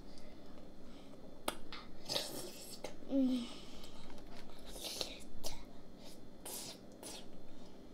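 Close-miked mouth sounds of eating a fast-food burger and fries: wet chewing and lip-smacking, with scattered sharp clicks and short breathy bursts, and a brief vocal sound about three seconds in.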